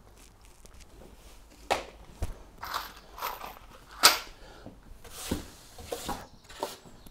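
Handling noise: scattered knocks, scrapes and rustles from tools and timber staircase parts being moved on a workbench, with one sharp knock about four seconds in as the loudest.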